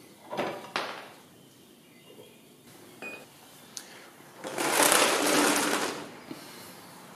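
A few short knocks in the first second. Then, about four and a half seconds in, the loudest sound: about a second and a half of scraping as a plastic folding step stool is set down on the floor under the scooter's front forks.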